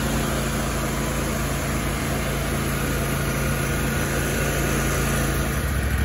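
Kohler Command engine on a zero-turn mower running steadily just after a cold restart, with a new fuel pump fitted; it has a slight surge that is expected to clean up once it warms. The engine gets louder and more throbbing near the end.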